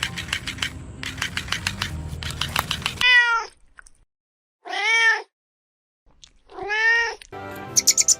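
Domestic cat meowing three times, each call a clear rise and fall in pitch, about three, five and seven seconds in. A fast run of sharp clicks comes before the meows and starts again just before the end.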